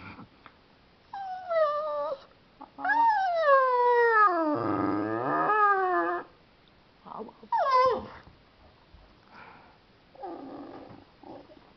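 Terrier 'talking' on command: several drawn-out howling whines that slide down and back up in pitch, the longest with a growly rumble in its middle. A short falling yelp follows, then a few fainter grumbles near the end.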